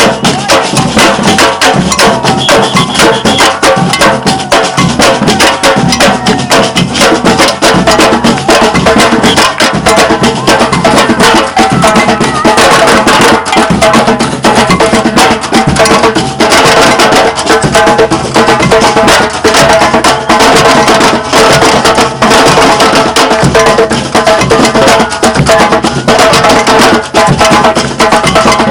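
Batucada percussion ensemble playing loud, dense drumming in a steady groove, with sharp clicking hand percussion on top.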